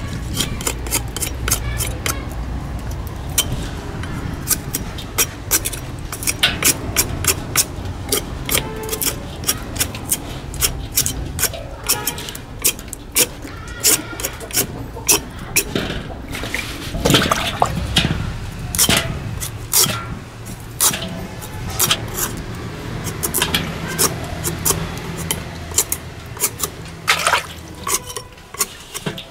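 A small metal scraper rasping over the rind of a wet pumpkin in quick, repeated strokes, a few a second, as dirty spots are scraped off in a steel basin, with water splashing and sloshing in the basin.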